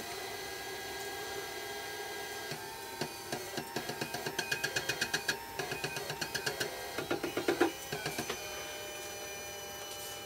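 Vinyl cutter's stepper motors buzzing in a quick series of short pulses, about five a second, for a few seconds in the middle, as the knife carriage and paper roller are jogged step by step into line with a registration mark. A steady electrical hum from the cutter lies underneath.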